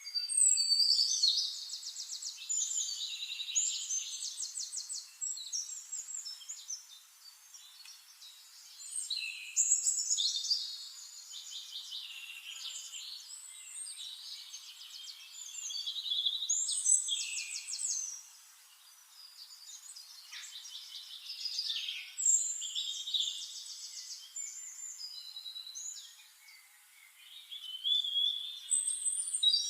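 Small songbirds singing: repeated phrases of rapid trills and chirps, each a few seconds long, coming back about every six seconds, five times in all.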